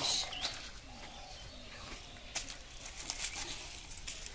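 Scattered rustles and short knocks of a catch being handled on a bank of dry leaves, the loudest just at the start.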